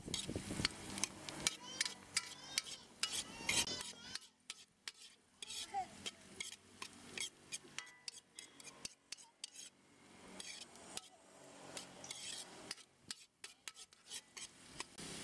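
A metal ladle stirring and scraping in an iron kadai, ticking irregularly against the pan, while shallots, dried red chillies and curry leaves sizzle in hot oil.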